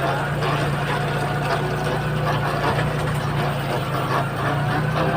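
Farm tractor engine running steadily with a continuous low drone and rattle, climbing a steep, rough dirt track.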